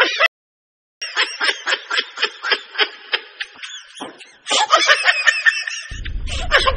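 Human laughter: a fast run of snickering giggles, about four or five a second, begins after a short silence. A louder burst of laughter comes in about four and a half seconds in, and a low hum enters near the end.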